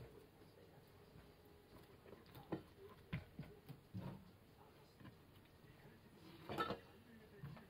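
Faint scattered taps and knocks of cut pineapple pieces being moved and set down on a plastic cutting board, a few in the middle and the loudest about six and a half seconds in.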